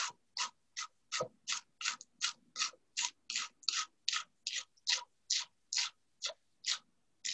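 Knife slicing scallions thinly on a cutting board: a steady run of quick, even cuts, nearly three a second.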